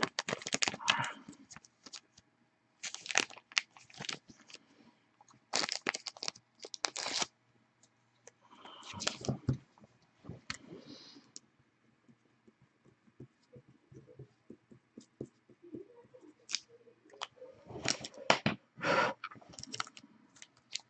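Clear plastic trading-card holders and sleeves being handled, in a few short spells of crinkling, scraping and clicking with quiet gaps between.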